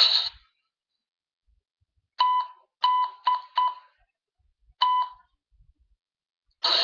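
A short ringing chime of one pitch sounds five times: four strikes in quick succession about two seconds in, then one more about a second later, each fading quickly.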